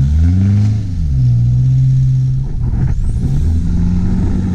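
Toyota four-wheel-drive ute's engine revving hard under load as it struggles up a soft sand dune, bogged with its wheels digging in. The revs rise, dip about a second in, hold, then turn rougher.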